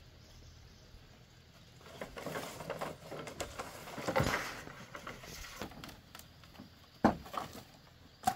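Dry bamboo poles and sticks rustling and clattering as they are gathered up by hand, with a single sharp knock of wood on wood near the end.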